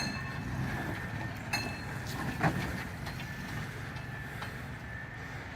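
Manual-transmission truck's engine running steadily just after being roll-started by popping the clutch on a dead battery. A few sharp clicks come about one and a half, two and a half and four and a half seconds in.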